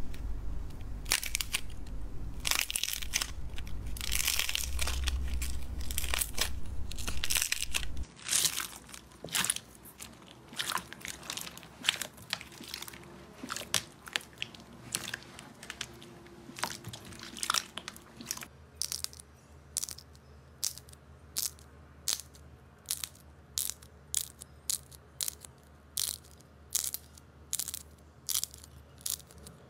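Hands squeezing and kneading slime: sticky crackles and pops, first over a low rumble and then more sparsely as beaded slime is worked. From about two-thirds of the way in, a fairly regular run of sharp pops, roughly two a second, as air bubbles in a sheet of slime are pressed and burst.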